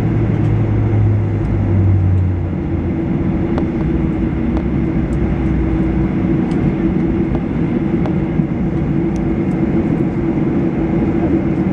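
Cabin noise of a Boeing 737-800 taxiing, its CFM56-7B engines at idle: a steady hum and rushing noise, with a low drone stepping down in pitch over the first couple of seconds. Faint ticks and rattles come through now and then.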